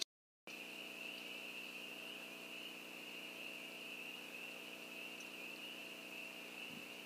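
Faint, steady, high-pitched drone with a low steady hum beneath it, starting after a short silent gap. There are no calls, shots or other distinct events.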